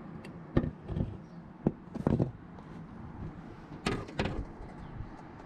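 Handling noises: a handful of short, scattered knocks and scuffs, the sharpest about half a second and a second and a half in.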